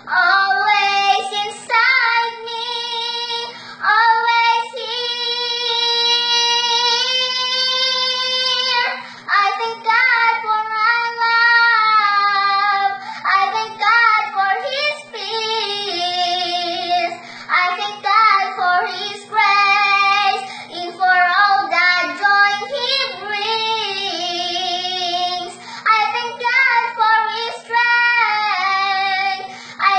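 A young girl singing a slow praise song, in long held notes that glide up and down with short breaks between phrases.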